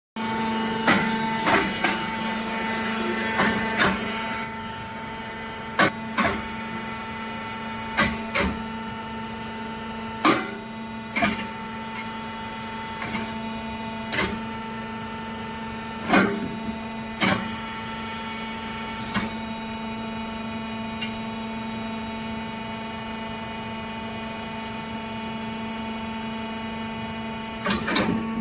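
Kobelco SK210 excavator's diesel engine and hydraulics running steadily with a constant hum while the log grapple is worked, broken by sharp metallic knocks every one to two seconds that thin out in the last third.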